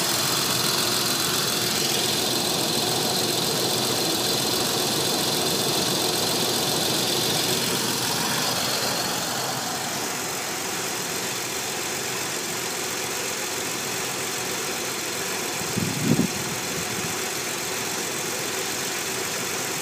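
Nissan 300ZX twin-turbo's VG30DETT V6 idling with a steady hiss, the sign of a vacuum leak. The hiss and overall level drop a little about halfway through, and a brief low thump comes about three-quarters of the way in.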